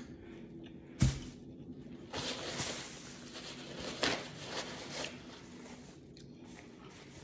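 A single sharp knock about a second in, then a few seconds of paper rustling and crinkling as a paper towel is handled.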